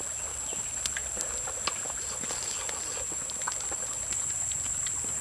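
Steady high-pitched drone of insects, with scattered small clicks and ticks.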